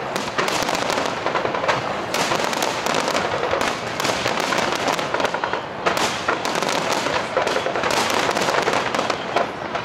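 Fireworks display heard at close range: aerial shells bursting in quick succession, with a dense, unbroken crackling and popping of many small reports.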